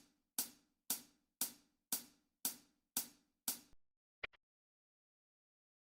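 A series of eight sharp ticks, evenly spaced at about two a second, followed by a quick double tick, then silence.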